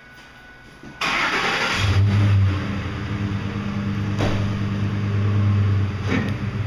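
A truck engine starts up about a second in and then runs steadily with a low hum, as the vehicle towing the magnetic sweeper gets ready to back up. Two short knocks come through partway along.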